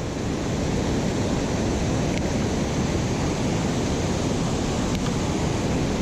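Steady rush of high river water pouring over a spillway, an even roar with no breaks.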